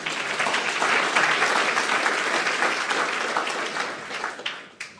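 Audience applauding, a dense patter of many hands clapping that dies away about four seconds in, ending with a few last separate claps.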